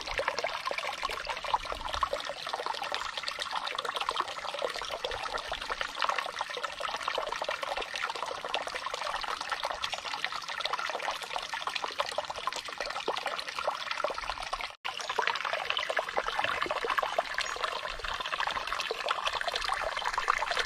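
Shallow stream trickling and burbling over rocks, a steady flow that cuts out for a split second about fifteen seconds in.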